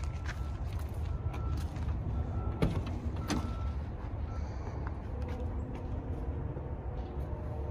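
Jeep Wrangler TJ door being unlatched and opened, with a couple of sharp clicks, over a steady low rumble. Faint short beeps sound about once a second in the first few seconds.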